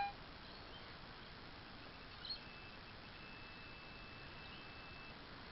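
Faint outdoor background hiss, with a short high chirp a little over two seconds in followed by a thin, steady high-pitched whine lasting about three seconds.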